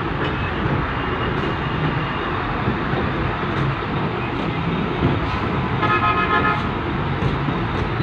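Heavy construction trucks' engines running in a steady loud din, from a concrete mixer truck and a concrete pump truck. A short horn toot sounds about six seconds in.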